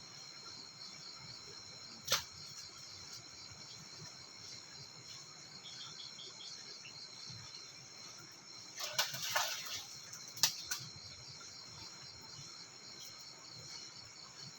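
Steady chirring of crickets and other insects, a high pulsing drone. A sharp click comes about two seconds in, and a short cluster of clicks and knocks follows about nine to ten and a half seconds in.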